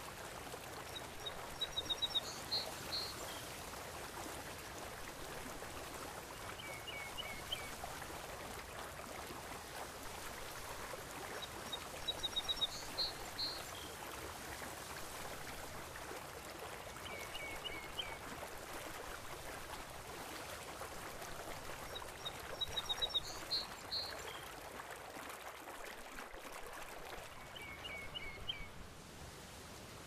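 Steady wash of sea water with birdsong laid over it: a quick run of high chirps about every ten seconds, each followed a few seconds later by a shorter run of lower chirps.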